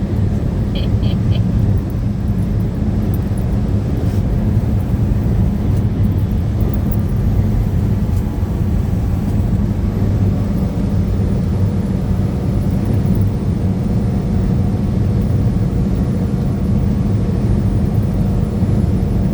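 Steady low road and engine drone heard inside a moving truck's cab.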